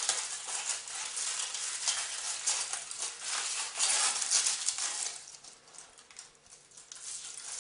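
Foil wrapper of a chocolate bar crinkling as it is peeled off and crumpled by hand, busiest for the first five seconds and then thinning to lighter rustles.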